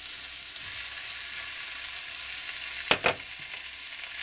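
Julienned onion, green pepper and carrot frying in oil in a wok, with raw chicken strips just added: a steady sizzle. About three seconds in, a sharp double knock.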